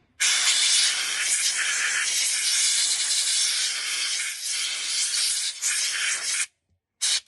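Aerosol can of contact cleaner spraying onto an electrical switch in a long steady hiss of about six seconds, stopping suddenly, then a second short burst near the end. It is cleaning the contacts of an intermittently working switch.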